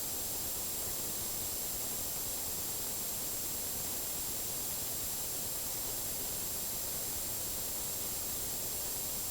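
Steady static hiss with a faint constant high-pitched whine, unchanging throughout, with no alert tones or voice.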